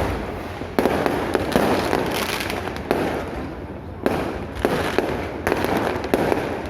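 Fireworks going off: a string of sharp bangs about once a second, each fading out in a crackling rumble.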